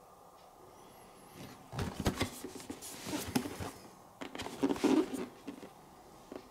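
Headphone packaging being handled: rustling and crinkling in two spells, one starting about a second and a half in and one about four seconds in.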